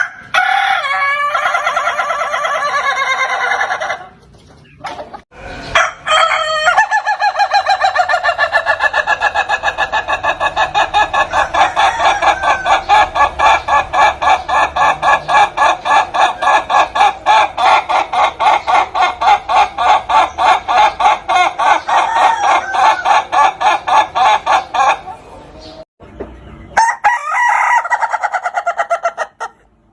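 Ayam Ketawa (laughing chicken) rooster crowing three times. The middle crow is very long, a rapid string of short even syllables like laughter, and two shorter crows come before and after it.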